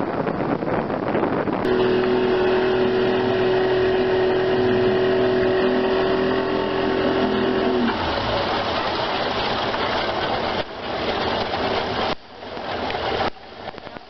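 Boat engine running at a steady pitch over wind noise on the microphone. About eight seconds in, the engine tone stops, leaving wind and water noise that drops away in steps near the end.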